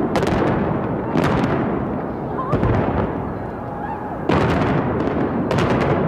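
Explosions of demolition pyrotechnics and fireworks around a hotel tower: five heavy booms spaced one to two seconds apart, with a rumble between them.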